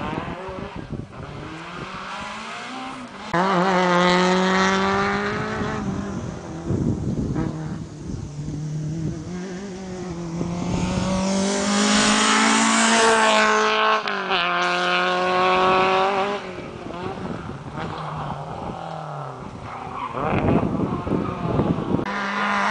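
Rally car engine revving hard up through the gears on a special stage: the pitch climbs in each gear and drops at each gearchange. It is loudest as the car comes past, then fades away.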